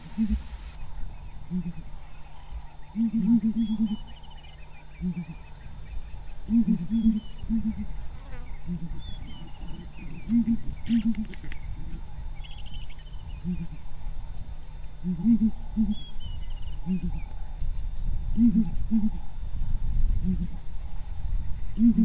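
Southern ground hornbills booming: deep, short hoots in groups of two to four, repeated every few seconds. Small birds chirp and insects buzz steadily in the background.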